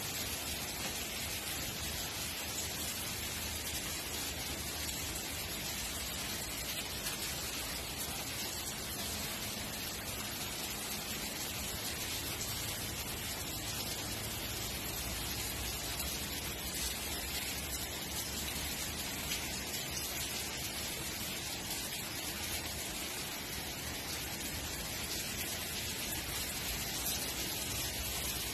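Steady rain falling, an even, constant hiss.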